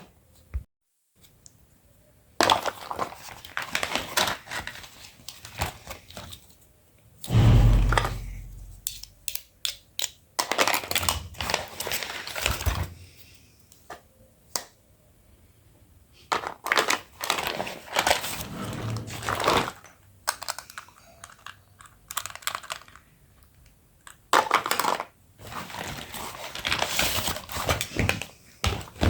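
Hands unboxing a toy kitchen set: plastic wrap crinkling and small plastic toy pieces clicking and knocking, in irregular bursts with pauses. A heavier thump comes about seven and a half seconds in.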